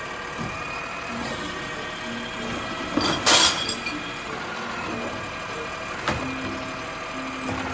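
Automated side-loading garbage truck running while its hydraulic arm lifts and empties a wheeled trash cart. About three seconds in there is a loud clatter as the cart is tipped over the hopper, and a knock a few seconds later.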